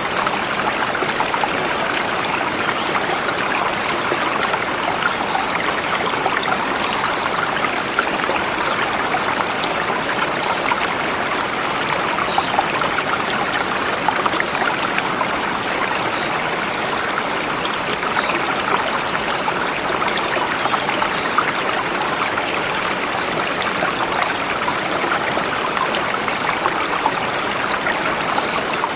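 River flowing over rocks: a steady wash of water with small splashes and trickles in it.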